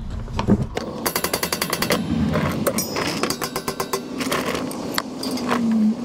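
Quick bursts of rapid metal-on-metal hammering on a Ford E450's steel exhaust pipe, about nine sharp blows a second, as a screwdriver is driven against the joint to knock the old catalytic converter section off.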